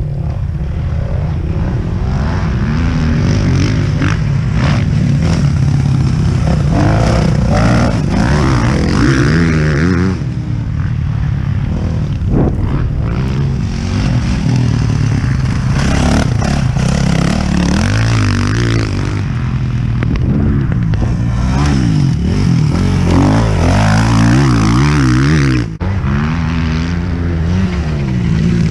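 Four-stroke motocross bike engine ridden hard, revving up and falling back again and again as the throttle is worked, with rattling and scraping over the top. About three seconds before the end the engine sound briefly cuts out and comes back.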